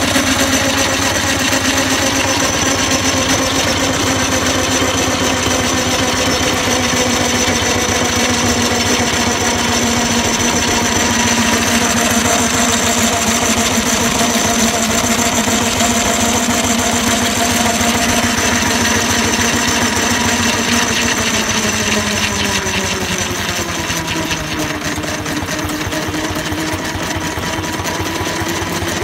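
A 4-inch scale live-steam Burrell road locomotive running, with a rapid, even mechanical clatter and a steady pitched note that drops lower about 22 seconds in.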